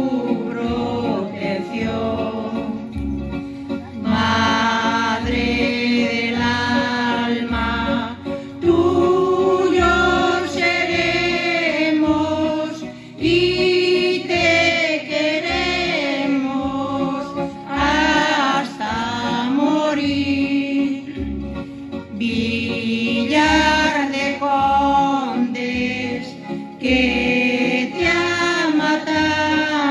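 A small choir singing a hymn into microphones, in long held phrases with short breaks between them.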